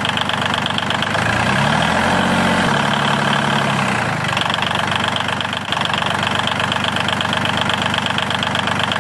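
Small motor of a homemade model tractor running with a steady, rapid rattle, with a tone that rises and falls once between about one and four seconds in.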